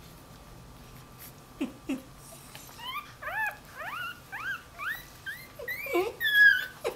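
Newborn dachshund puppy crying as it searches for its mother: two low grunts, then a run of short rising squeaks about two a second, ending in a louder, higher squeal near the end.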